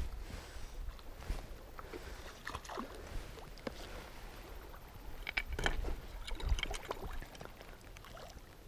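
A shallow stream runs over stones, with a low rumble and scattered clicks and rustles from fly line, reel and landing net being handled close to a chest-mounted camera. The clicks cluster about five to seven seconds in.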